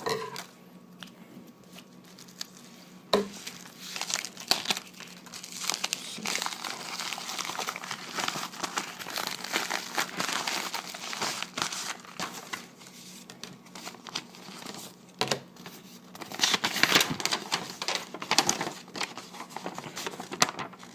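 Packaging crinkling and rustling as a trading card is unwrapped by hand, in irregular bursts, with one sharp snap about three seconds in.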